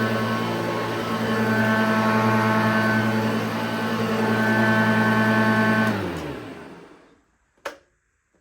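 1989 Hoover Junior U1104 upright vacuum cleaner's 300 W motor running steadily, then cutting out about six seconds in and winding down with falling pitch. A single sharp click follows near the end.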